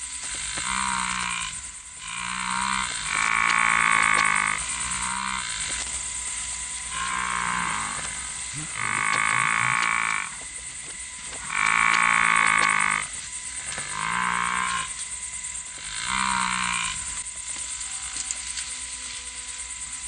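A series of about ten croaking animal calls, each about a second long, repeating every second or two, the loudest few in the middle. A steady high hiss runs underneath.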